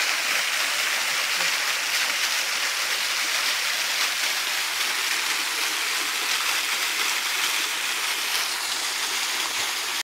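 Waterfall rushing steadily, a constant even hiss of falling water.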